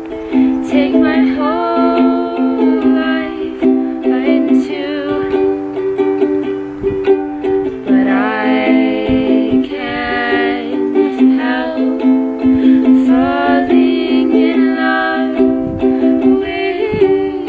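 Background music: a melody with sliding notes over sustained chords.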